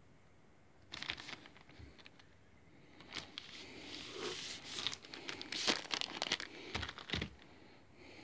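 Packaging crinkling and rustling as a chainsaw guide bar is handled and unwrapped, with two soft knocks near the end.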